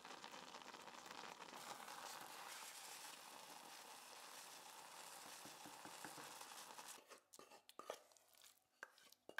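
Thick cooked red split lentils bubbling and being stirred in a pot with a wooden spoon, an even wet churning for about seven seconds. It then gives way to a handful of separate soft knocks and scrapes as the mash is scooped out of the pot.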